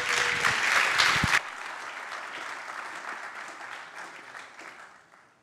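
Audience applauding at the end of a talk. The clapping drops abruptly about a second and a half in, then thins out and dies away.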